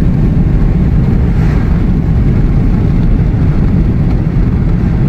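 Steady road and engine rumble inside a moving vehicle's cabin, low and even throughout.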